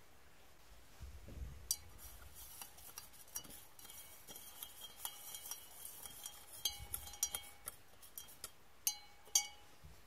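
A thin rod stirring scrap connector pins in a glass beaker of dilute hydrochloric acid, tapping and clinking against the glass. The clinks start about two seconds in and come irregularly, the glass ringing briefly after the sharper taps, with the loudest two near the end.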